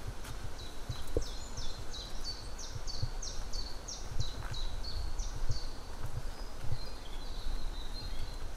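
A songbird singing in woodland: a run of repeated two-note phrases, about two a second, each a high falling note then a lower one, trailing off into a softer warble near the end. A low rumble with soft thumps runs underneath.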